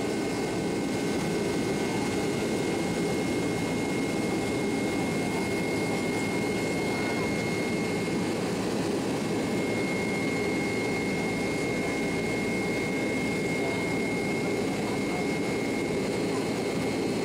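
Steady cabin noise of a Boeing 767-300ER climbing after takeoff, heard from a window seat beside the wing: constant engine and airflow noise at climb power with a thin, steady high whine over it.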